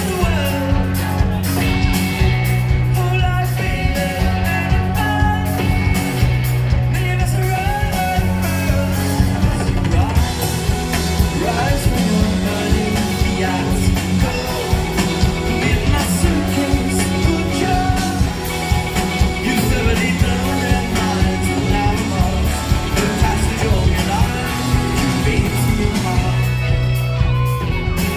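Rock band playing live with a singer over drums, bass, electric guitars and keyboard, heard over a festival PA.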